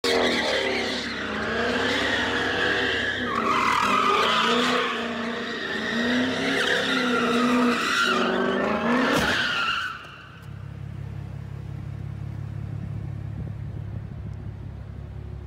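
Car drifting in circles, its tyres squealing and its engine revving up and down. About ten seconds in the squeal stops and the engine drops to a quieter, steady low note.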